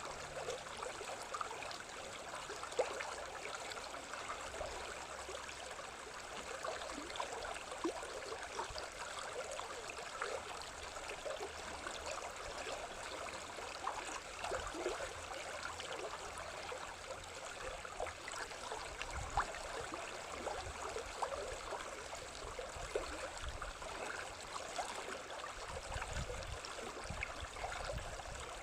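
Water running in a stream: a steady babbling wash flecked with small gurgles.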